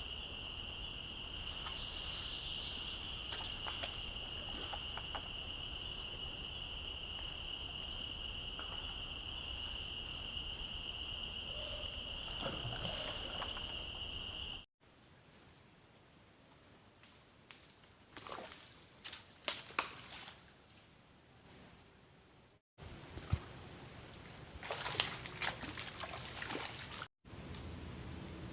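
Insects buzzing steadily: first a continuous mid-high note, then after an abrupt change a thinner, higher insect tone with a few short clicks and knocks.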